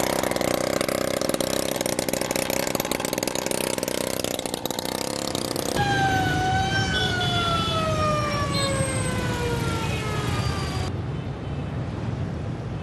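Busy city street traffic: vehicle engines with horn tones sounding over them. About six seconds in, a long pitched tone slides slowly down in pitch for about five seconds. Near the end it drops to quieter traffic noise with faint horn tones.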